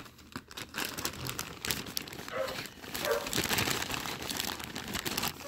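Packaging crinkling as it is handled, a string of irregular crackles and rustles.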